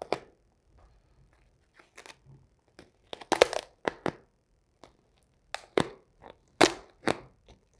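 3M 1080 satin dark grey vinyl wrap film crackling and crinkling in the hands as the loose flap is pulled up and held, in irregular sharp crackles.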